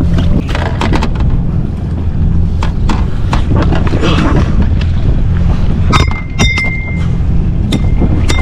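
A jet ski engine idles steadily while a fish bag and gear on the deck are handled, giving a scatter of sharp clicks, knocks and rattles. A thin, steady high tone comes in about six seconds in, broken by further sharp clicks.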